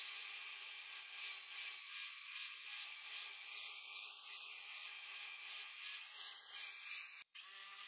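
Handheld belt sander running across the flat face of a spalted maple slab: a steady sanding hiss with a faint regular pulse as it is pushed back and forth. A little after seven seconds it cuts off abruptly and a different tool's steadier motor hum takes over.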